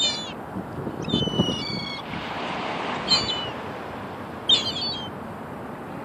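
Gulls calling: about five bouts of high, harsh calls scattered through, the longest just after a second in, over a steady rushing background.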